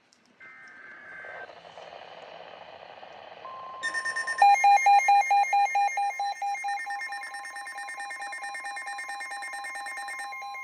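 NOAA Weather Radio flood warning alert: a brief burst of data tones and static hiss, then about three and a half seconds in the steady 1050 Hz warning alert tone starts. Half a second later a rapidly pulsing electronic alarm beep joins it, loudest at first and slowly fading, heralding the warning message.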